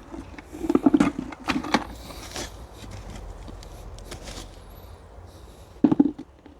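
Scraping and rustling of soil being dug through by hand for potatoes, in a few short bursts: a cluster in the first two seconds, one more about two and a half seconds in, and another just before the end.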